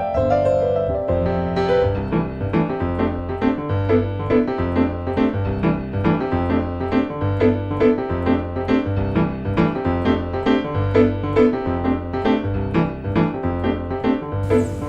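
Background piano music with a steady rhythm of repeated notes over a pulsing bass.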